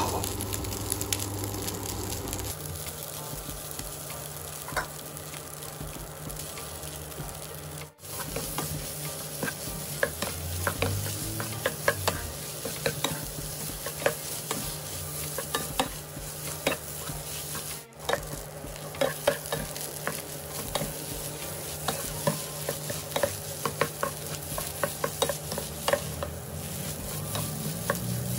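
Rice and egg sizzling in a nonstick wok while a wooden spatula stirs and scrapes, with frequent sharp taps of the spatula against the pan. The sound briefly drops out twice.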